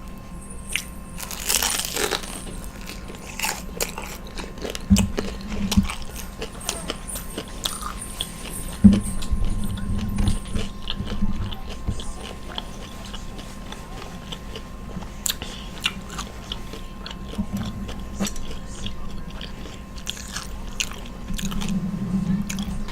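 Close-up eating of crispy fried takeout food: biting, crunching and chewing, with a loud crunch about a second and a half in and a few dull thumps around five and nine seconds.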